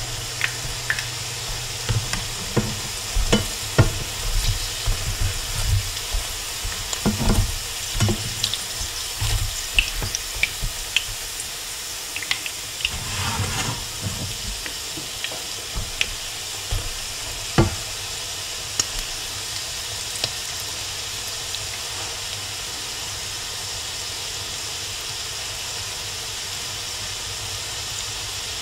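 Salmon patties frying in shallow oil in a skillet, with a steady sizzle. For roughly the first 18 seconds, spatulas click and scrape against the pan as the patties are turned. After that only the sizzle goes on.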